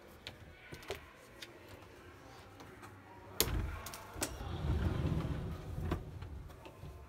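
A wooden interior door being opened by hand: light clicks, then a sharp click of the handle and latch about three and a half seconds in and another just after. A low rumble follows as the door moves, ending in one more click.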